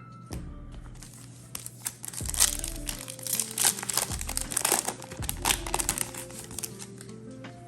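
Plastic wrapper of a Yu-Gi-Oh booster pack crinkling and tearing as the pack is opened, a rapid crackle most of the way through. Background music with a steady bass line plays under it.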